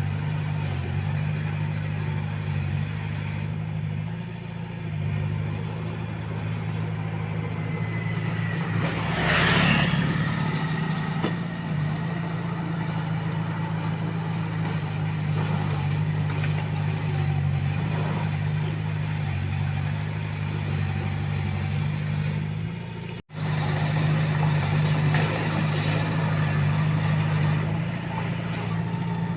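Komatsu D21A bulldozer's diesel engine running steadily as the machine works, with a brief louder burst of noise about nine seconds in. The sound drops out for an instant about two-thirds of the way through.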